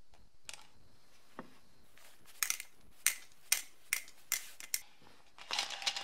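A series of sharp clicks, about two a second, quickening into a fast run of clicks near the end, with a brief falling squeak a little over a second in.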